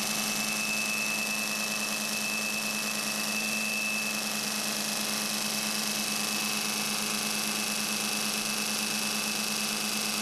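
Counter-rotating CR-Kromrey converter running with both rotors spinning, a steady machine hum with hiss over it. A thin high whine is strongest in the first few seconds, then fades.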